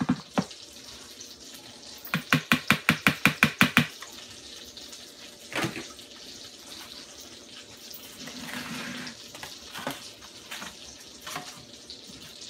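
Fork beating eggs in a plastic bowl: a quick, even run of strokes, about six a second, lasting about two seconds. A few scattered light knocks follow.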